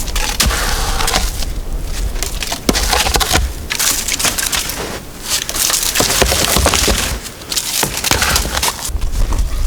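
Dry wood and forest debris crunching and snapping, with many sharp cracks in an uneven string.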